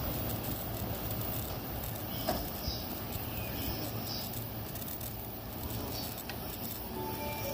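Chūō–Sōbu line commuter train standing at a station platform with its doors open: a steady hum and platform noise, with a few faint knocks. A chiming melody starts near the end.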